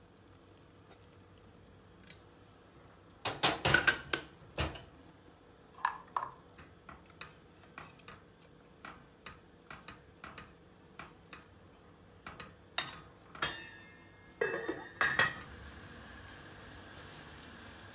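A metal spoon clinking and scraping against a stainless steel pot while stirring liquid and pressing tea bags: two bursts of rapid loud clinks with scattered lighter taps between. A steady hiss sets in near the end.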